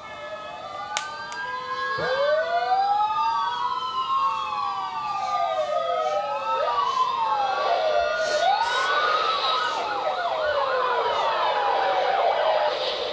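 Several police sirens wailing at once, their rising and falling pitches overlapping and crossing, turning into a faster, denser warble past the middle. A single sharp click sounds about a second in.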